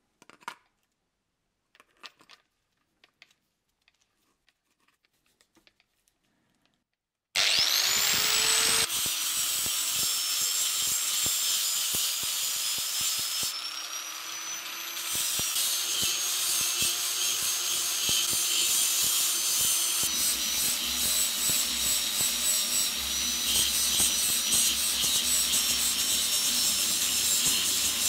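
A few faint clicks, then about seven seconds in an angle grinder starts, its whine rising as it spins up, and runs on steadily with a flap disc grinding rust off a steel helmet shell.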